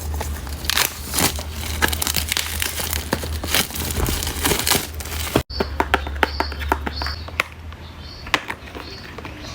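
Packaging of a new marker pen set being unwrapped and handled by hand: a dense run of irregular rustles and crackles. They become quieter and sparser after an abrupt cut about halfway through, and a low hum runs under the first part.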